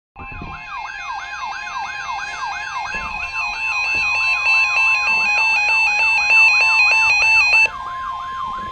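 Weather radio alarms sounding together for a tornado watch alert: a steady NOAA Weather Radio 1050 Hz alert tone under a repeating siren-like sweep, about three sweeps a second, and fast stepping high beeps. The beeps stop about a second before the end, and the sweep and steady tone cut off just after.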